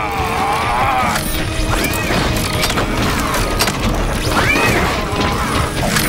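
Action-cartoon fight soundtrack: dramatic background music under metallic crashes and clanks of robots fighting, with two swooping effect sounds, one about two seconds in and one past the middle.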